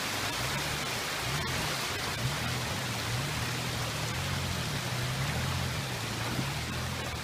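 Steady rush of a shallow stream running over rocks, with the low, slightly wavering engine note of a Toyota FJ Cruiser's V6 crawling slowly up the rocky bed and a few faint knocks.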